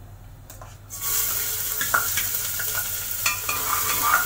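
Chopped onion dropped into hot ghee in a pressure cooker, starting to sizzle about a second in, with a spoon clinking and scraping against the metal as it is stirred.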